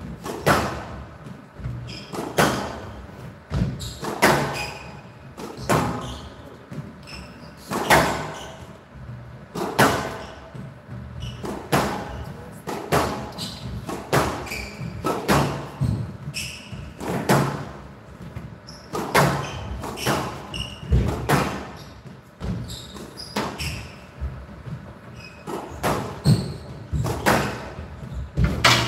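A squash rally: ball hits from the rackets and the ball smacking the front wall, about one every one to two seconds, echoing in a large hall.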